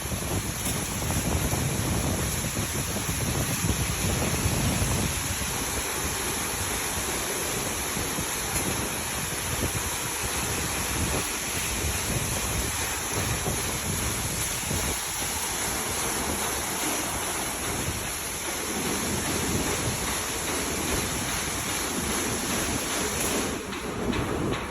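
Automatic car wash running over a car: a steady rushing noise of water spraying, with a low rumble underneath. The hiss changes character near the end.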